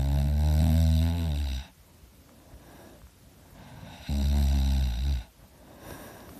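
A sleeping person snoring loudly. There are two long, low snores, the first about a second and a half long and the second about a second long starting some four seconds in, with quiet breathing between them.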